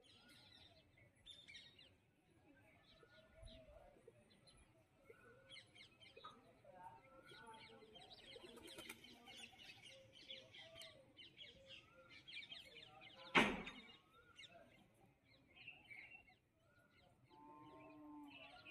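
Birds chirping: many short, quick chirps scattered throughout. One sharp click or knock stands out about 13 seconds in.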